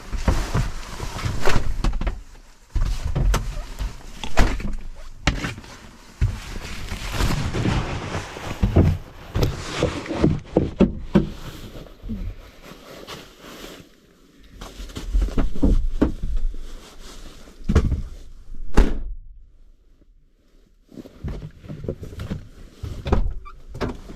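Snow shovel working fresh snow: repeated scraping of the blade and dull thuds at irregular intervals, with a short pause about three-quarters of the way through.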